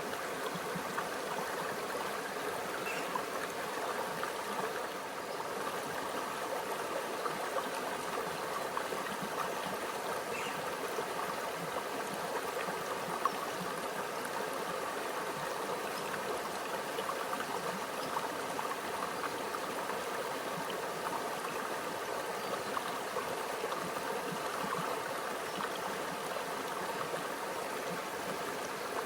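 Small stream flowing and trickling steadily over rocks, a continuous gentle babble.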